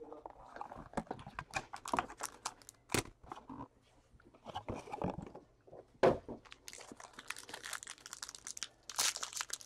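A 2016 Donruss Signature trading-card box being opened and its wrapped pack handled: irregular crinkling of the plastic wrapper mixed with clicks and taps of cardboard. A few sharper knocks stand out, about three seconds apart.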